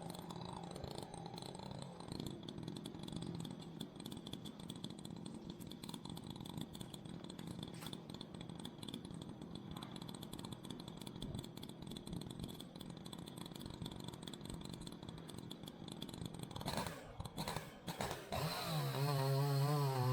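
Two-stroke chainsaw running quietly and steadily, then a few knocks, and near the end the saw much louder with an unsteady, wavering pitch.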